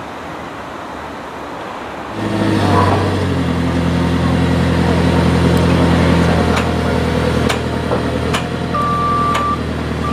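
A heavy engine running steadily, starting suddenly about two seconds in, with a few sharp clicks, and a short high toot near the end.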